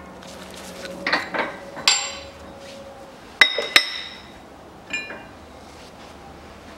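Steel press tooling (an adapter plate and a bearing-race driver) being lifted off and set down on the rear hub: a few dull metal knocks, then two sharp ringing clinks in quick succession about three and a half seconds in, and a lighter clink about five seconds in.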